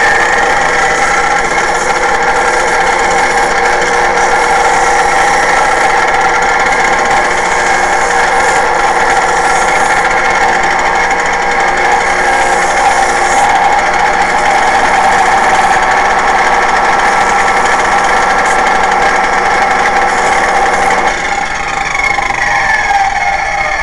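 Power tool's large abrasive wheel running with a steady whine while a plastic shotgun shell hull is held against it to bevel its end. About 21 seconds in the motor is switched off and the whine falls in pitch as the wheel winds down.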